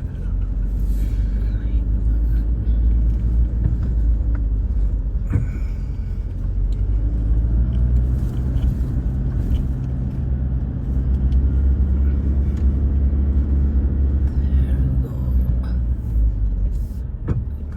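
A vehicle's engine running steadily with a low rumble as it climbs a rough, broken dirt road, with a few sharp knocks as it jolts over the bumps.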